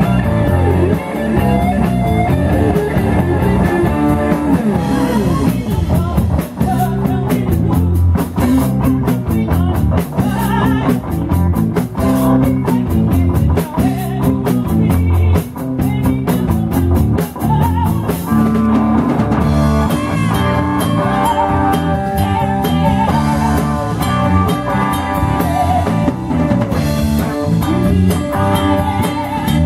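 Live rock band playing a Southern rock song: electric guitars, bass and drum kit, with a woman singing lead.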